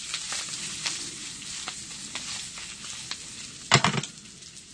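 Potatoes and scallions frying in chili oil in a pan, a steady sizzle with light clicks of the utensil against the pan. A louder clatter about three and a half seconds in, after which the sizzle gets quieter.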